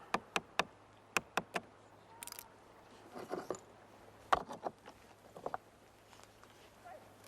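A series of short, sharp clicks and knocks at irregular spacing, the loudest a little past four seconds in, over a faint steady hum.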